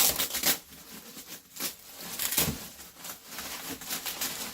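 Packaging rustling and crinkling as an item is unwrapped and handled, in irregular bursts, loudest right at the start.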